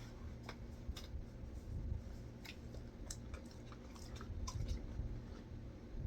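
Dog chewing a chicken nugget: quiet mouth sounds with irregular small clicks of the teeth.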